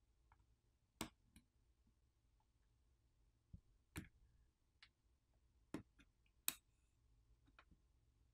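Faint, sharp clicks of phone flex cable connectors being popped off the main board with a plastic pry tool, about four distinct clicks spaced a second or more apart, with a few fainter ticks between.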